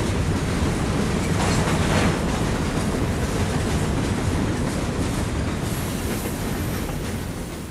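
Freight train's boxcars and tank cars rolling past, a steady noise of steel wheels on rails, fading out near the end.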